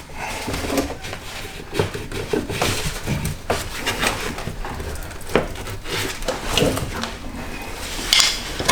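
Tool prying at the bent metal tab that holds a BMW E30's fuel filler neck: irregular metallic clicks, knocks and scrapes, with a louder clatter near the end.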